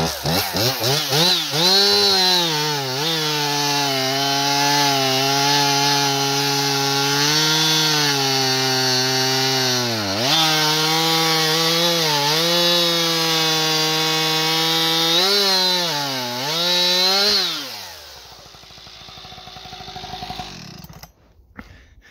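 Husqvarna 585 two-stroke chainsaw with an expansion chamber pipe, revved to full throttle and cutting through a frozen log under light pressure. The engine holds a steady high pitch with a few brief dips, then drops back to idle about 18 seconds in and goes quiet near the end.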